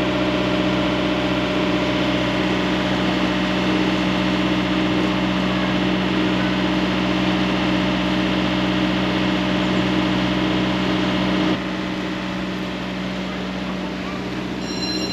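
A sailboat's engine running steadily while motoring slowly; it steps down suddenly a little quieter near the end. A few high, thin steady tones start just before the end.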